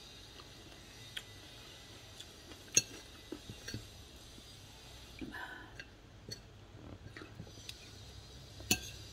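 Metal spoon and fork clinking and scraping against a plate as food is scooped up, a handful of sharp separate clinks, the loudest about three seconds in and another near the end.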